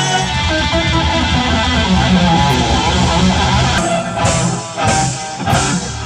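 Rock band playing live with electric guitars and drums, loud and dense, breaking into a run of hard accented hits in the last couple of seconds.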